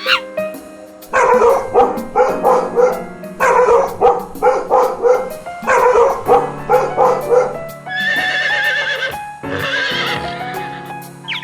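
Horses whinnying: a run of loud, shaking whinnies one after another, then two higher calls near the end, over background music.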